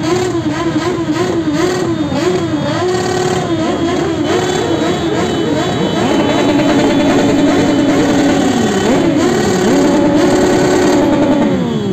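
Several motorcycles and scooters revving their engines together, the engine pitch rising and falling over and over, with some revs held steady for a second or two in the second half.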